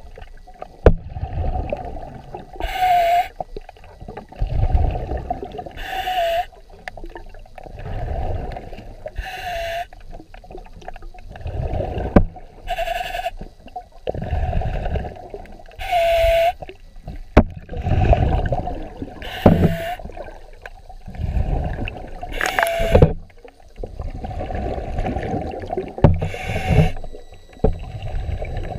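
Muffled underwater recording of a swimmer breathing through a snorkel, one breath about every three seconds, each a hiss with a short whistle. Low rumbling water noise runs under it, with a few sharp knocks.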